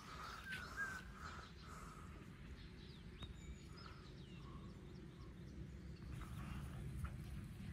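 Outdoor ambience: small birds chirping and whistling in short calls here and there, over a low steady rumble.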